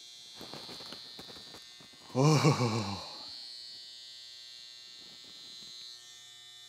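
BaByliss Pro Super Motor Skeleton cordless hair trimmer running with a steady, even high-pitched buzz, fairly quiet. About two seconds in, a short, louder burst of voice sounds over it.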